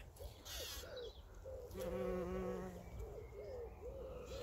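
A bee buzzing close by for about a second near the middle, over short bird calls repeating in the background.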